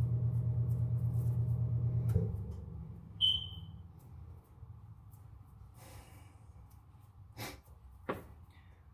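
A steady low machine hum stops abruptly about two seconds in. About a second later there is a short high beep, and near the end two soft clicks.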